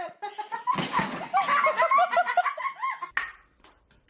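A person laughing, in a run of quick repeated bursts from about a second in, dying away near the end.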